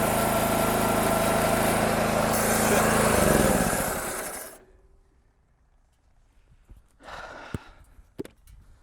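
Homemade bandsaw sawmill running steadily under its small engine, then winding down and stopping about four seconds in. A few short clicks and knocks follow in the quiet.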